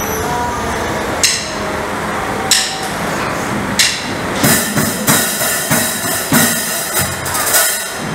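Sharp percussion strikes, wood-block-like knocks. Three come slowly, about a second and a quarter apart, then a quicker, uneven run of hits with a bright hiss starts about halfway through, like a drummer starting a beat.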